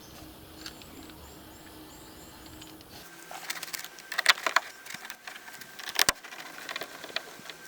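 Light clicks and knocks of plastic interior trim being handled, starting about three seconds in, with one sharper knock about six seconds in.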